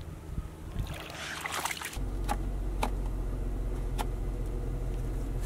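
Water lapping and splashing in river shallows. A couple of seconds in, a Jeep's engine starts a steady low hum heard inside the cabin, with three sharp clicks as the terrain-select knob is turned.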